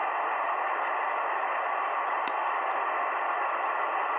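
Shortwave receiver hiss on an open single-sideband voice channel in the 40-metre band: steady band noise between transmissions while no station answers, with a few faint static clicks.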